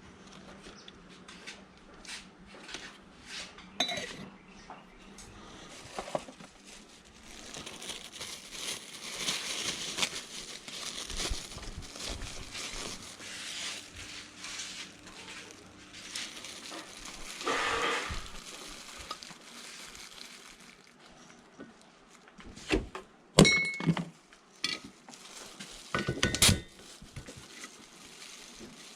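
Objects being handled and set down on a work surface: scattered light clinks and rustling, a stretch of soft hiss in the middle, and a few louder knocks near the end.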